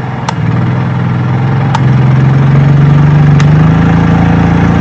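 Honda EU3000 inverter generator running. Its engine speeds up in steps as it is brought onto full rated load, so its hum grows louder and higher. Three short clicks are heard along the way.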